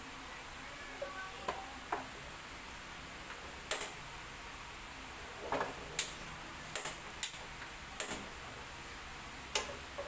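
Wooden spatula tapping and scraping against a nonstick frying pan, a string of about a dozen irregular sharp knocks.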